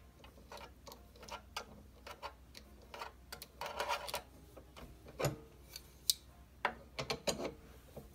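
Irregular light clicks and taps from a coil binding machine and its parts being handled during unboxing, with a short rustle about four seconds in and a few sharper knocks near the end.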